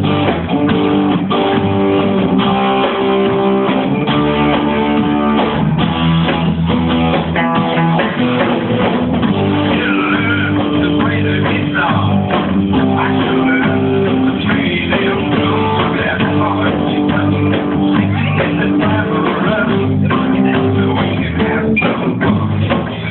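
Live rock band playing, with guitars and a drum kit.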